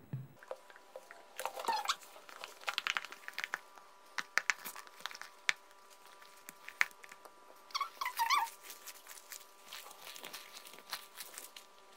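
Glue-and-shaving-foam slime being stirred as borax activator is mixed in, making irregular sticky squelches and clicks. Two short wavering squeaks stand out, about a second and a half in and again about eight seconds in.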